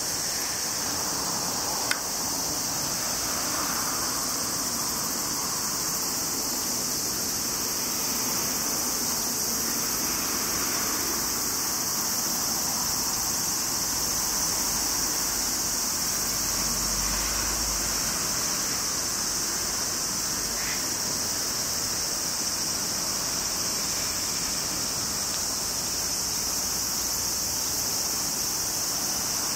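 A steady, high-pitched chorus of cicadas drones without a break, over a faint background hum of the surroundings. There is a single sharp click about two seconds in.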